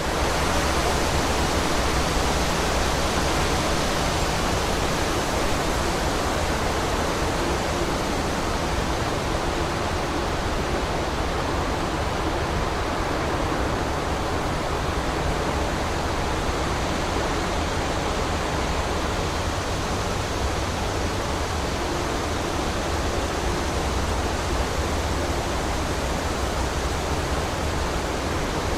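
Strong wind blowing through a forest's trees: a steady rushing with a deep rumble underneath.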